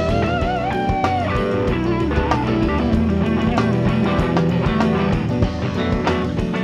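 Rock band playing live, recorded to cassette tape: electric guitar over bass and drums, with a held, wavering high note in the first second or so.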